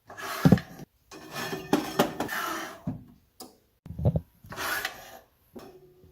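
Rubbing and scraping from a sheet of Kydex plastic being handled and worked, in about five bursts of up to two seconds, with a couple of dull thuds among them.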